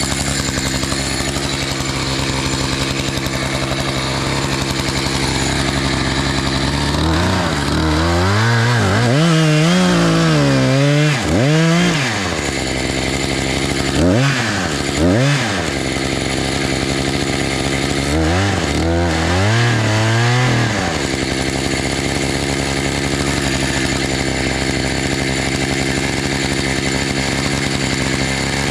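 Two-stroke chainsaw idling steadily, revved up and down in a run of quick bursts about a quarter of the way in, twice more briefly around the middle and again in a run a little later, then settling back to idle.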